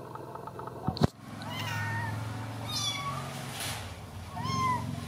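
A young kitten mewing three times, short high-pitched cries that rise and fall; the uploader puts its crying down to the cold. A single sharp knock comes about a second in.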